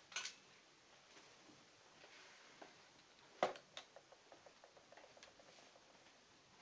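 Faint clicks and knocks of small plastic toy figures being handled on a tabletop: a click just after the start, a sharper knock about three and a half seconds in, then a run of quick faint ticks.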